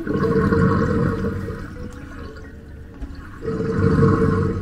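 Running tap or shower water splashing in a sink or basin, swelling louder twice: at the start and again about three and a half seconds in.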